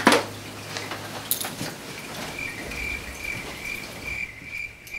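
Rustling and a click from someone rummaging through boxes and bottles of beauty products. From about two seconds in there is a high chirp that pulses about three times a second, and it cuts off abruptly at the end.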